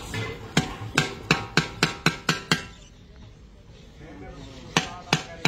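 Metal spatula and ladle clanking against a large black wok as a cabbage-and-egg stir-fry is tossed, each strike ringing briefly. A quick run of clanks, about four a second, stops about two and a half seconds in, and three more clanks come near the end.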